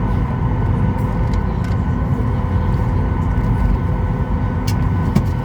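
Steady cabin noise inside a Boeing 737 MAX 8 airliner: a constant low rumble with a steady multi-tone hum from the aircraft's air and machinery systems. A few light clicks come near the end.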